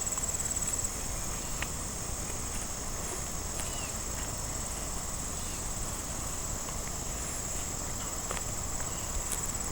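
Insects trilling steadily in one high-pitched band, with a low rumble underneath and a few faint scattered clicks.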